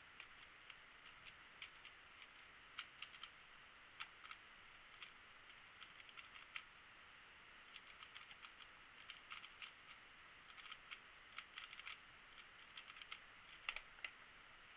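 Speed cube being turned one-handed: an irregular run of light, quick plastic clicks as the layers turn. A louder knock near the end comes where the solve stops and the laptop timer is stopped.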